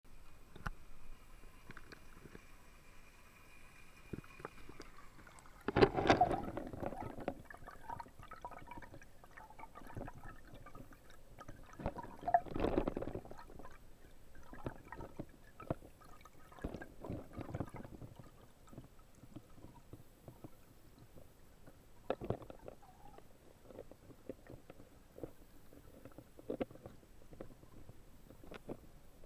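Water sloshing and gurgling around an action camera held under water in a spring's bathing pool, muffled, with scattered small knocks. Two louder splashes come about six seconds in and about twelve and a half seconds in.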